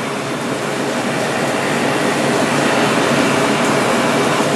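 Steady, even rushing hum of air conditioning or ventilation in a restaurant, unbroken and without any sudden sounds.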